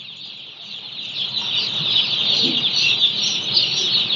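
A crowd of day-old broiler chicks peeping together: a dense, high chorus of overlapping cheeps that grows louder about a second in.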